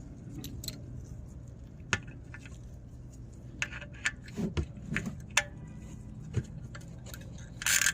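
Socket ratchet and oil drain plug being worked by hand: scattered light metallic clicks and taps, with a short rasping burst near the end, as the drain plug is tightened after an oil change.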